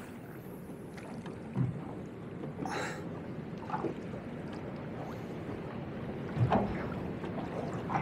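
Choppy water slapping and gurgling against a small aluminium boat's hull, with wind on the microphone and a few short, irregular splashes or knocks, the sharpest about three seconds in.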